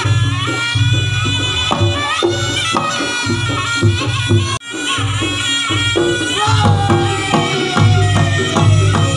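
Reog Ponorogo gamelan music: a slompret (shawm) plays a wavering, reedy melody over steady kendang drumming and gong strokes. The sound cuts out for an instant about halfway through.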